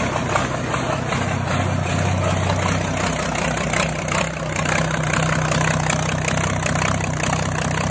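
MTZ-1221 tractor's freshly rebuilt six-cylinder diesel idling steadily on its first run, with no exhaust manifolds or turbocharger fitted, so it exhausts straight out of the open ports in the cylinder head. The oil is still cold and thick.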